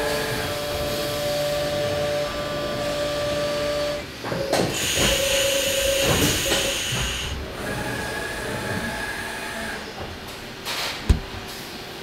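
CNC vertical machining centre running, with a steady spindle whine and the hiss of coolant jets while it cuts. The tones shift and there is clatter about a third of the way in, around a tool change. A single sharp clack comes about a second before the end.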